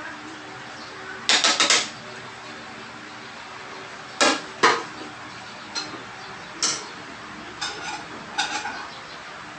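Plates and other dishes clinking and clattering as they are handled, in short scattered knocks: a quick run of four clinks about a second in, then single and paired clinks every second or so.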